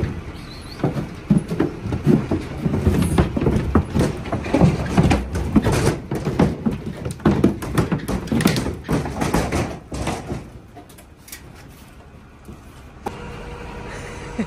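Cattle hooves clattering and thudding on the wooden floor and ramp of a livestock trailer as a group of cattle is driven out, an irregular run of knocks lasting about ten seconds. Near the end a steady hum with a held whine starts as the livestock lorry's powered tail ramp begins to lift.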